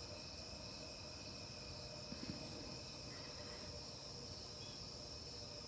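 Faint, steady high-pitched insect chorus.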